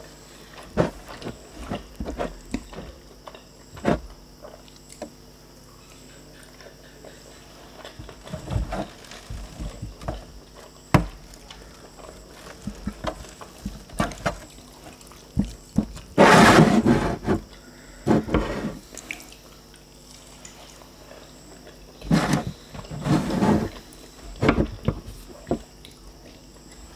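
Close-miked eating sounds: lempeng flatbread being chewed, with mouth smacks and scattered clicks of the bread being torn and dipped in sambal. A couple of louder, longer noises come about two-thirds of the way through and again near the end.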